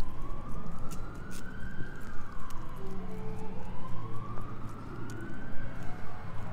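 An emergency vehicle's siren wailing, its pitch slowly rising and falling in two long sweeps of about three seconds each.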